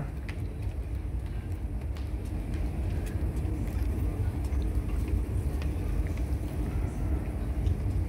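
Steady low engine rumble with a faint even hum above it: a van's engine idling close by.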